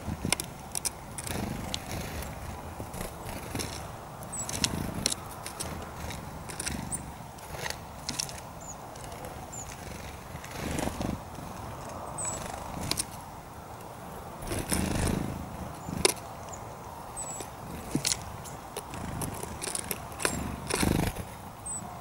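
Eurasian blackbird pecking and flicking sunflower seeds on a wooden feeder tray: irregular sharp clicks and taps, with a few faint, very short high-pitched bird calls. A low background rumble runs underneath.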